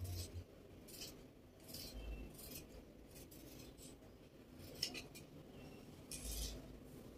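Scissors snipping through fabric: about six short, crisp cuts at uneven intervals, with soft handling of the cloth in between.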